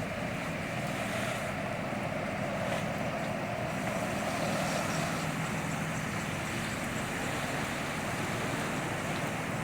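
A vehicle driving through standing floodwater: a steady rush of splashing water over a low engine hum, swelling for the first few seconds and then easing.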